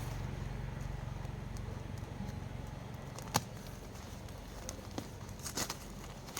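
A jute-sack package being handled and worked open: scattered faint crackles and clicks, with one sharp click about three and a half seconds in and a few more near the end, over a low steady hum.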